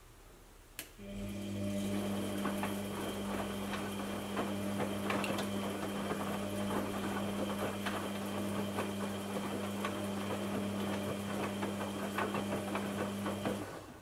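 Aldi front-load washing machine: a click, then a steady electric motor hum with irregular crackling and ticking water sounds for about twelve seconds, cutting off suddenly near the end.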